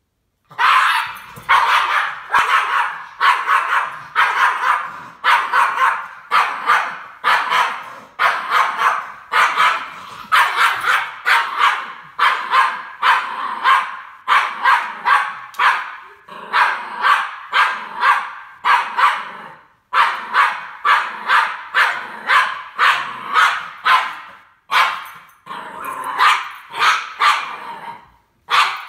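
Norwich Terrier barking over and over in fast runs of sharp barks, a few per second, with short pauses between runs. The barking starts about half a second in.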